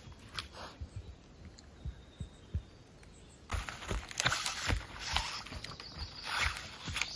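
Footsteps on a forest floor of pine needles and twigs, sparse at first, then quicker and louder about halfway through.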